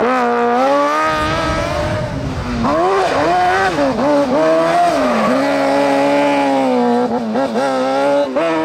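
Race car engine under hard throttle, its pitch rising and dropping several times as it accelerates and lifts off, then holding fairly steady for a few seconds before more quick rises and falls near the end.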